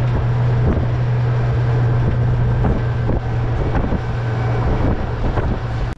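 Outboard motor of a small fishing tender running steadily under way, with a constant low hum and wind noise on the microphone, and a few faint knocks.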